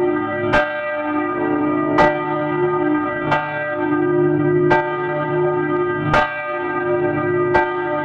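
A church bell tolling, struck six times at an even pace of about one stroke every second and a half, each stroke ringing on into the next.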